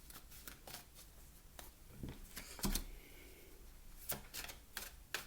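Oracle cards being handled and shuffled: scattered soft clicks and flicks of card stock, with a light thump about two and a half seconds in.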